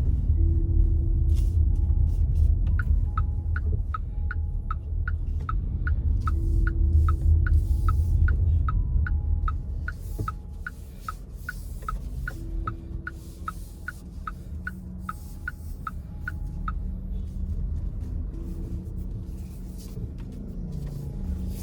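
Low road and engine rumble inside a moving car's cabin, dropping in level about halfway through as the car slows. From about three seconds in, the turn-signal indicator ticks steadily, about two and a half ticks a second, for some fourteen seconds.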